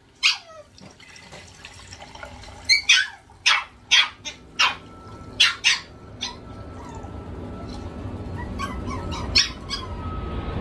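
A dog barking in short, sharp barks, about nine, most of them in a burst a few seconds in, some in quick pairs. Underneath, water is poured from a large bottled-water jug into a small glass fish tank, the pouring growing steadily louder.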